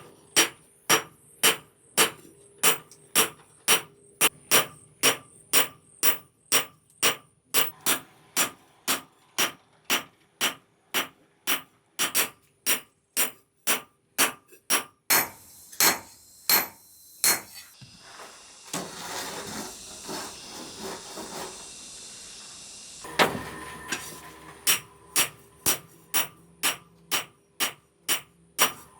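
Hammer blows on steel at an anvil in a steady rhythm, about two a second, with a metallic ring on each strike: hand forging of the blade. Past the middle the blows stop for about five seconds and a steady rushing noise takes their place, then the hammering starts again.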